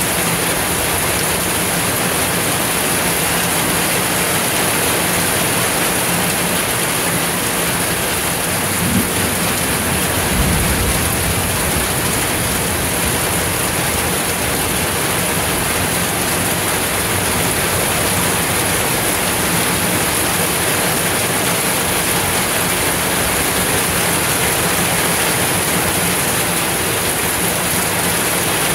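Heavy rain pouring steadily onto the street and porch, with a short low rumble about ten seconds in.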